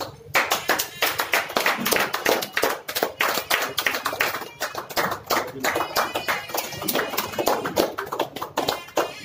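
A group of people clapping their hands in a quick, even rhythm, several claps a second.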